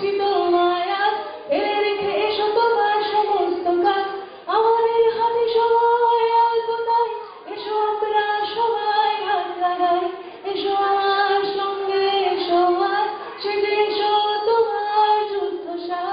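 A woman singing solo into a microphone, in long held notes that bend and slide between pitches, phrase after phrase with short breaths between.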